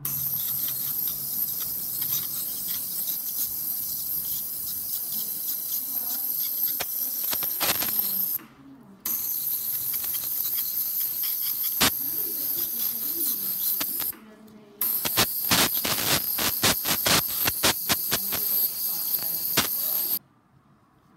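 Ultrasonic dental scaler running with a steady, high-pitched hiss from its tip and water spray as it scales calculus off a dog's teeth. It cuts out briefly twice and stops near the end, and in the last few seconds a fast run of sharp clicks comes through.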